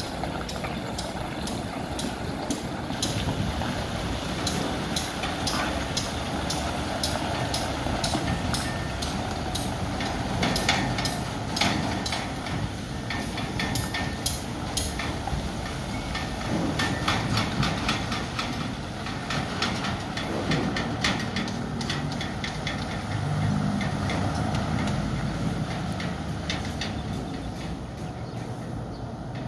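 Diesel engine of a loaded dump truck running as it pulls away and drives off, with many sharp metallic rattles and knocks from the body and load over the rough ground.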